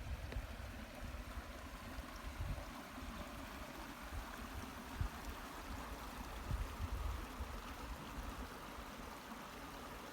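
Wind gusting against the microphone in low, uneven rumbles over a steady hiss of water in the background.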